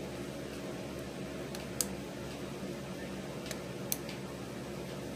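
A few light clicks and snaps of rubber loom bands being worked over the pegs of a small plastic loom with a hook: one at about two seconds in, then two close together near four seconds. A steady low hum runs underneath.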